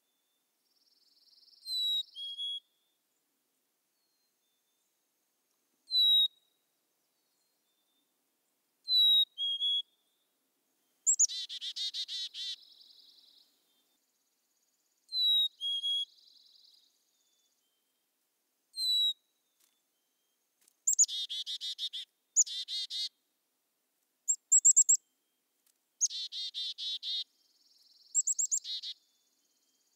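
Black-capped chickadee calling: clear whistled two-note calls falling in pitch, repeated every few seconds, then, from about eleven seconds in, longer buzzy calls of several quick notes, which come more often near the end.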